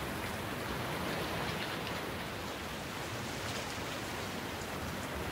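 Steady rain falling, an even hiss with the patter of scattered drops.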